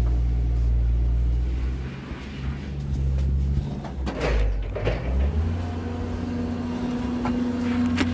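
An engine running steadily with a low hum that shifts to a higher pitch about five seconds in, with a few brief knocks and clatters over it.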